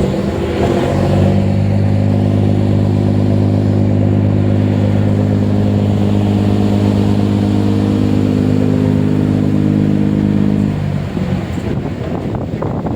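Ferry's loud, low, steady drone holding several pitched tones at once, which stops abruptly about eleven seconds in, leaving a rougher rumble.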